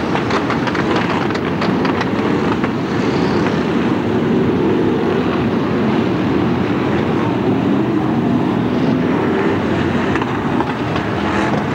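A pack of BriSCA F1 stock cars' V8 engines running together as they circulate the track, a loud, steady mass of engine noise.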